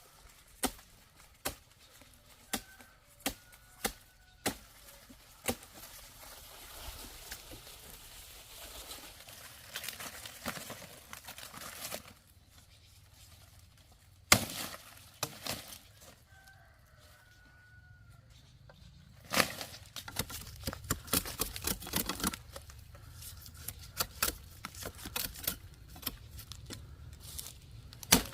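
Sharp knocks and clicks at irregular intervals, with a quick flurry of them about twenty seconds in, alongside faint chicken clucks.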